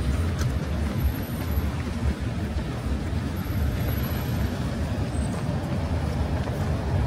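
Steady road traffic on a busy city avenue: a continuous low rumble of passing vehicles.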